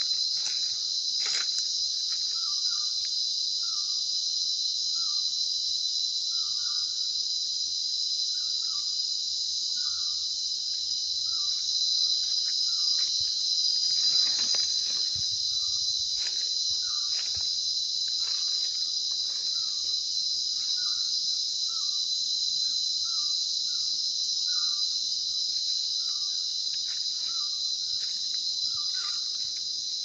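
Steady, high-pitched chorus of rainforest insects, unbroken throughout. Beneath it a lower, short chirp repeats about once a second, with occasional brief rustles.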